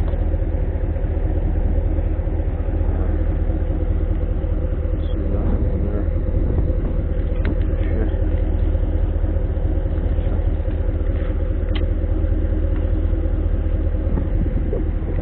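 Pickup truck engine idling steadily, with wind rumbling on the microphone.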